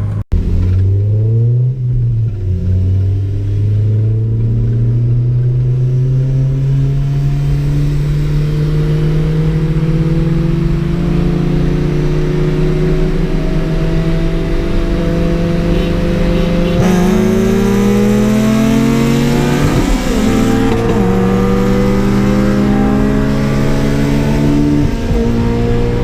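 Car engine under hard acceleration on a highway pull. The pitch climbs slowly and steadily, then drops and climbs again at gear changes about twenty and twenty-five seconds in.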